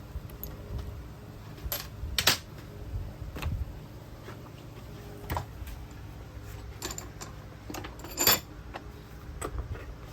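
Scattered metallic clicks and clinks of metal parts or tools being handled, the two loudest about two seconds in and near the end, over a low steady hum.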